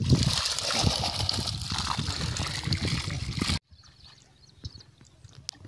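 Water splashing and sloshing as a fishing net full of small fish is pulled through shallow water, cutting off abruptly about three and a half seconds in; after that only faint scattered ticks.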